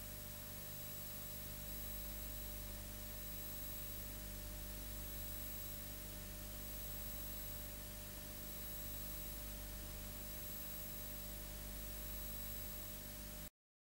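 Steady hiss and low hum with faint, thin high whining tones: the background noise of a silent cine film's transfer, with no sound of its own. It cuts off suddenly near the end.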